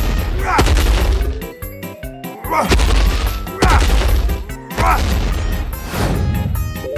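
Background music with several heavy crashing hits, spaced a second or more apart, each with a short chirping sweep.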